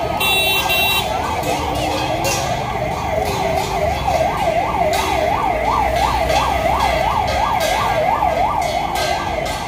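Ambulance siren sounding a fast yelp, its pitch sweeping up and down about three times a second.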